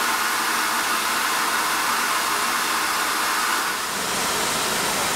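Steady loud hiss of steam escaping from a standing LMS Stanier Class 5 'Black Five' steam locomotive, 44767.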